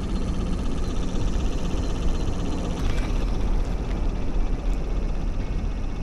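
Steady low rumble of wind buffeting the microphone outdoors, with a faint rapid ticking high in pitch.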